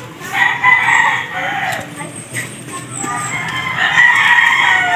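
Rooster crowing twice, each crow about a second and a half long.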